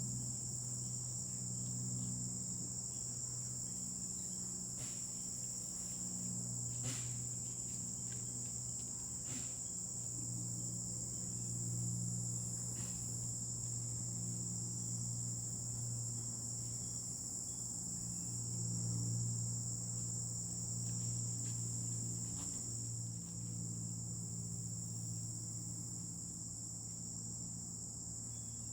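Steady high-pitched chorus of crickets trilling without a break, over a low steady hum, with a few faint clicks.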